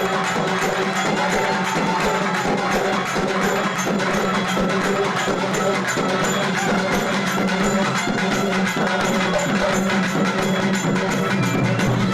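Fast, steady percussion music: rapid, evenly repeated strokes over a held low tone.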